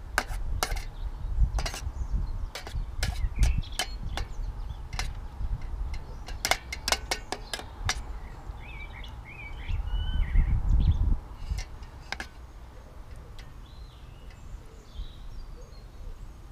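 Spoon clinking and scraping against an aluminium camping pan as beans and sausages are stirred, with frequent clinks over the first half that thin out later. A bird chirps in the background a few times.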